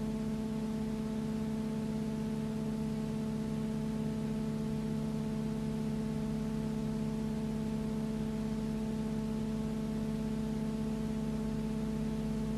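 A steady hum of several fixed tones over an even hiss, unchanging throughout, with no swell or change in pitch as the aircraft pass: the background noise of a silent cinefilm transfer rather than the sound of the planes.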